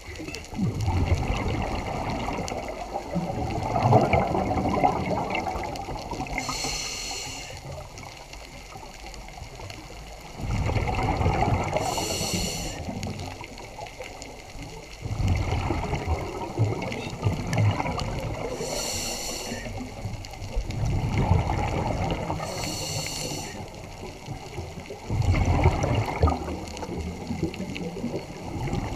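Scuba regulator breathing underwater. Each exhale brings a bubbling gush of bubbles, every four to six seconds, and a short high hiss comes in between.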